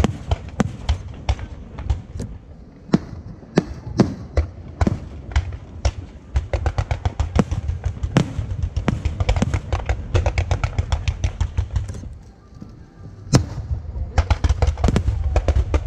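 Aerial fireworks going off: single sharp bangs at uneven spacing, then a fast run of several reports a second. After a short lull comes one loud bang and another rapid run of reports near the end.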